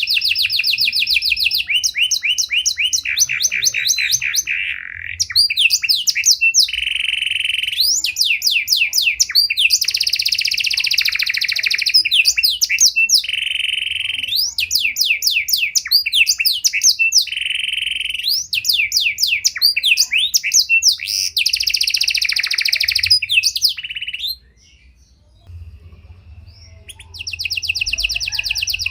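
Pied ('panda') domestic canary singing a long, varied song of fast trills, repeated note series and sweeping rolls. It breaks off about 24 seconds in, then resumes with a fast trill near the end.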